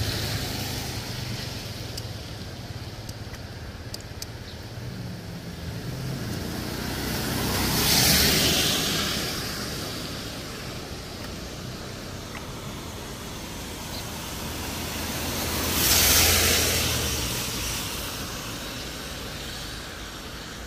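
Cars passing on a rain-wet road, their tyres hissing on the water. Two pass-bys swell and fade, one about eight seconds in and another near sixteen seconds.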